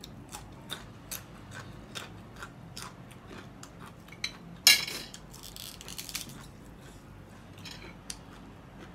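Close-up crunching and chewing of a raw yardlong bean: a run of crisp crunches a few times a second, with one louder crackle about halfway through.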